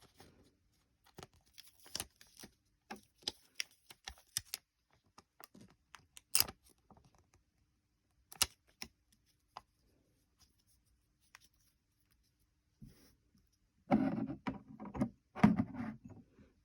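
Small handling noises: scattered light clicks and taps, then two louder, longer bursts of noise near the end.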